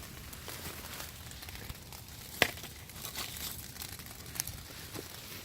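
Rustling and crinkling from something being handled, with a few light clicks and one sharp snap about two and a half seconds in.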